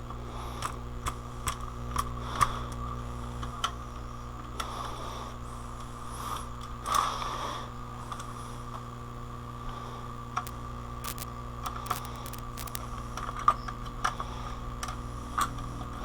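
Scattered light clicks and taps of small parts being handled on a DVD player under repair, with a brief scraping rustle about seven seconds in, over a steady low electrical hum.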